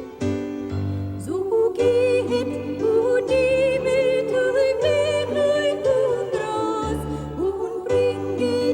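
A slow Christmas carol: a woman's solo voice sings with vibrato over keyboard accompaniment. The voice comes in about a second in, after a few held accompaniment chords.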